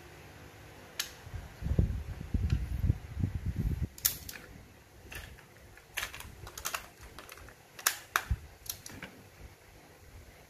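Plastic cassette-deck mechanism from a Sony CFS-1133S being handled: low bumps and rubbing, then a string of sharp plastic clicks as a cassette is fitted into it.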